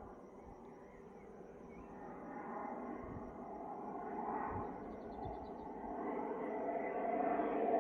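Daher TBM 910 single-engine turboprop (Pratt & Whitney PT6A) approaching for a fast low pass, its engine and propeller sound building steadily louder.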